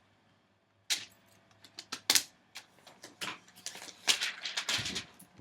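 Clear plastic protective film being peeled off a new laptop LCD screen, with irregular crackles and clicks of the film and plastic handling starting about a second in.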